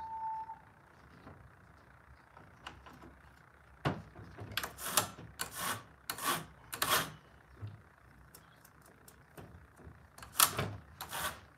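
A chainsaw's bar and chain being fitted by hand: a sharp knock, then short metal scrapes and rattles as the bar and chain are worked into place, four in quick succession and two more near the end.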